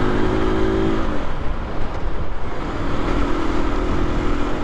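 Aprilia RS 125's single-cylinder four-stroke engine running under way at a steady pitch, dropping away about a second in and coming back about three seconds in. Wind rumble on the microphone throughout.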